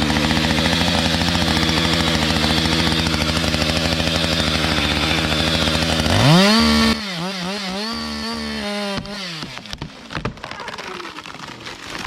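Chainsaw engine idling steadily. About six seconds in, its pitch rises and wavers for a few seconds, then stops. Scattered knocks and clicks follow.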